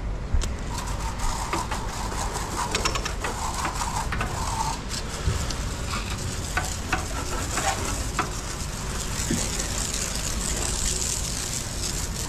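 Water jetting from a garden-hose spray nozzle and spattering across a yacht's fibreglass deck: a steady hiss, louder in the second half, with scattered ticks and a low rumble underneath.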